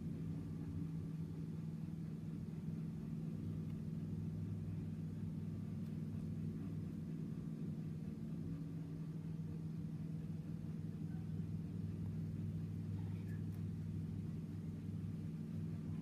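A steady low hum that does not change, with a few faint ticks from the metal lighter being handled.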